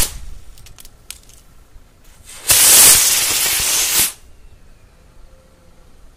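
Firecracker tubes on a spinner toy hissing out. One hiss cuts off right at the start, followed by a few faint crackles. About two and a half seconds in, another tube hisses loudly for about a second and a half and then stops.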